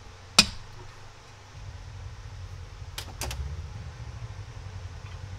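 Handling noise from an LSA supercharger on a workbench while its snout oil is drained: a sharp click a little under half a second in, two quieter knocks about three seconds in, and a low rumble from about a second and a half on as the unit is tilted.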